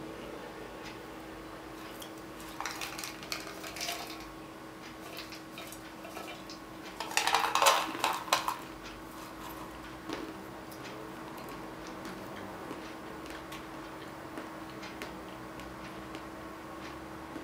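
Salted peanuts rattling and clinking against the inside of a metal tin as it is tipped and handled, in scattered small clicks with a louder clatter lasting about a second and a half midway through.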